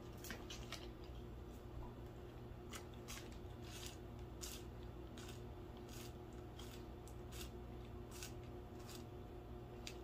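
Faint chewing of a sticky, chewy Rice Krispies treat: irregular soft mouth clicks and smacks throughout.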